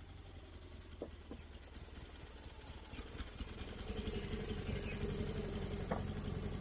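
Portable band sawmill's gasoline engine running steadily, growing louder about four seconds in, with a few light knocks.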